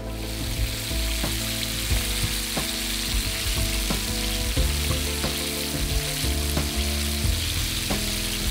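Batter-coated apple slices deep-frying in hot fat at about 160–170 °C in a pan: a steady sizzle.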